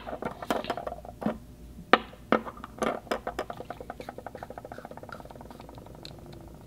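Hard rubber safety fountain pen being twisted to extend its nib. A few sharp clicks are followed by a fast run of small even ticks that fades away.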